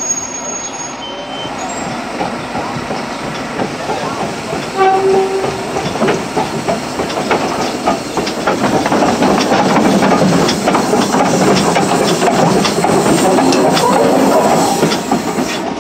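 Achenseebahn steam tank locomotive No. 1 "Theodor" moving slowly past close by. Its steam hisses and its wheels and rods clank, getting louder as it comes alongside.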